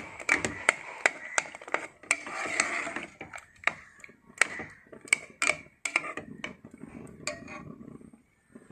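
A metal spoon knocking and scraping against a pressure cooker pot in an irregular run of sharp clicks and knocks while cooked jackfruit is mashed inside; it stops just before the end.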